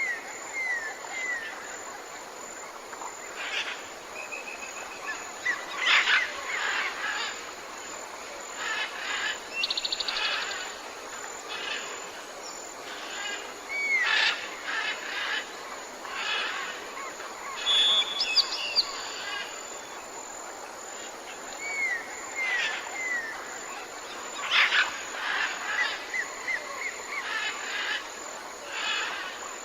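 Birdsong ambience: several birds calling at once, with short chirps, falling whistled notes and quick trills over a steady background hiss.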